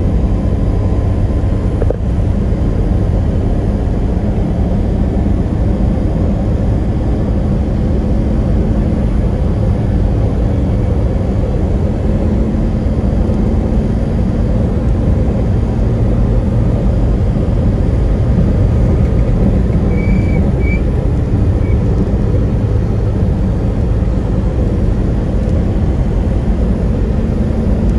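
Steady low drone of a vehicle engine and tyres on the road while driving at highway speed.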